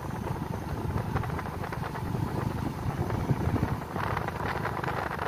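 Low, uneven rumble of wind buffeting the microphone while riding along a road, with a patch of crackling rattle from about four seconds in.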